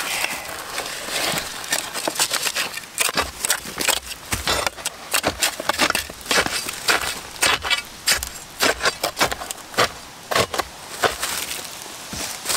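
Shovel blades scraping and stabbing into dirt and dry leaves, backfilling and tamping soil around a cardboard concrete pier form, with many irregular sharp scrapes and crunches.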